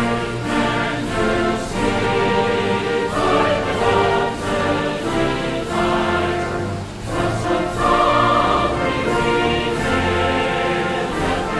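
Background music: a choir singing held notes, with orchestral backing.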